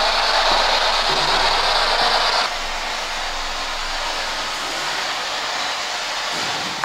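Steady hiss that drops suddenly to a lower level about two and a half seconds in, with a faint low hum underneath.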